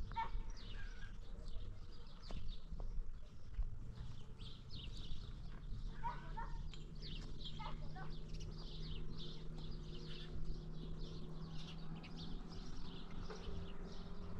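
Many small birds chirping continuously, with a low steady hum underneath from about four seconds in.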